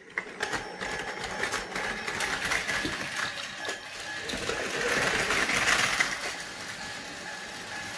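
Battery-powered Tomy Plarail toy trains running on plastic track, their small electric motors whirring with a rapid clicking clatter. The upgraded Shinkansen E6 Komachi, fitted with a Tamiya Atomic-Tuned 2 motor, is loudest as it passes about five seconds in.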